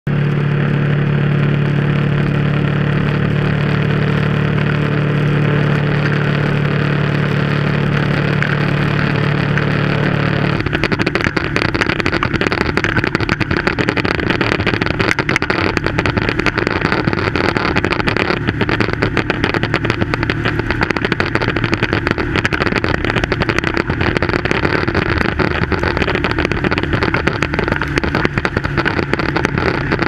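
Motorcycle running at steady highway speed, its engine a steady hum under wind rush. About ten seconds in, a rough, fast-fluttering wind buffeting from strong highway winds takes over and nearly covers the engine.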